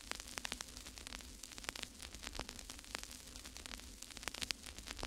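Faint crackling static: irregular sharp clicks and crackles over a steady low hum.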